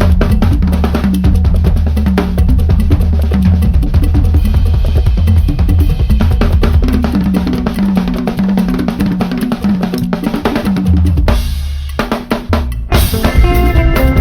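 Drum kit played along to a Ghanaian highlife track: bass drum, snare and rimshots over a steady bass line. About 11 seconds in the drums drop out and only the bass carries on briefly, then the full band and kit come back in with a cymbal splash near the end.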